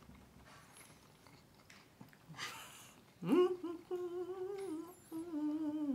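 A person humming a tune with closed lips. A brief hiss comes a couple of seconds in; then, about three seconds in, the hum scoops up in pitch and holds wavering notes in three short phrases, sinking at the end.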